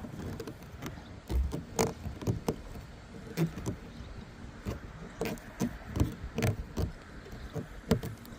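Irregular small clicks and knocks of handling as a new antenna mast is screwed by hand onto its threaded base on the vehicle roof.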